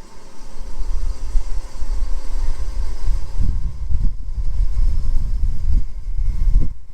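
Farm machinery's diesel engine running, with a heavy, uneven low rumble.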